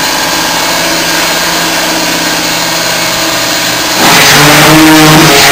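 A motor running steadily, becoming louder with a change of pitch about four seconds in.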